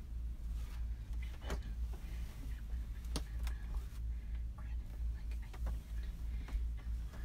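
Scattered light clicks and knocks of craft supplies being handled and set down on a table, over a steady low hum.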